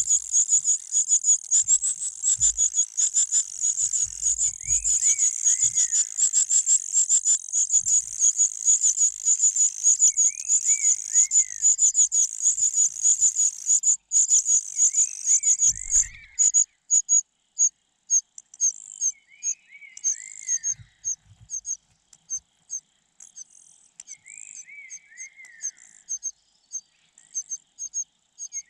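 Nestling birds giving rapid, very high-pitched begging chirps, a dense continuous run that thins to spaced chirps about halfway through. A short call of about three falling notes repeats roughly every five seconds.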